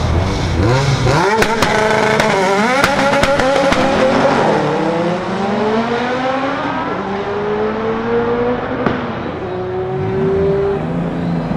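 Drag-race launch of a Dodge RAM 1500 TRX, its 6.2 L supercharged Hemi V8 running alongside a tuned hatchback. From about a second in both engines accelerate hard, their pitch climbing and dropping back through several quick upshifts with a string of sharp pops. The engine notes then rise more slowly through the higher gears and grow thinner as the vehicles pull away down the strip.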